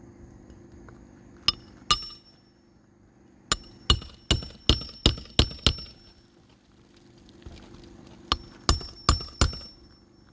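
Hammer striking metal in quick ringing blows: two single taps, then a run of about seven at roughly three a second, then four or five more near the end. This is the hammer driving a roofing nail under a lifted shingle.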